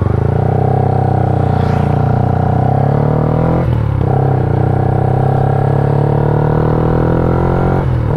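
Yamaha Y15ZR's freshly rebuilt single-cylinder four-stroke engine accelerating under load while riding, its pitch climbing steadily. There are two upshifts, each a short break about a third of the way in and again near the end, after which the engine picks up from lower revs.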